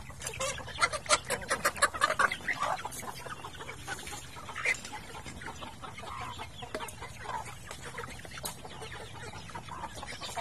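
A flock of chickens clucking while feeding, with a quick run of sharp taps and calls in the first couple of seconds, then scattered clucks.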